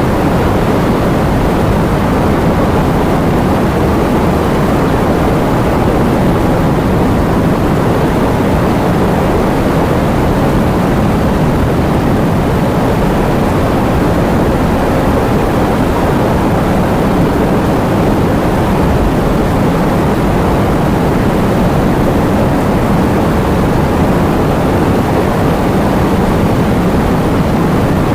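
Heavy rain falling steadily, a dense, even rushing noise with no let-up.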